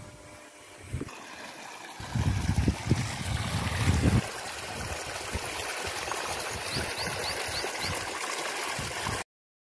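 Water from an electric irrigation pump's outlet pipe gushing and splashing into a field channel, a steady rush that cuts off suddenly near the end. From about two to four seconds in, loud low thumping sits under the water.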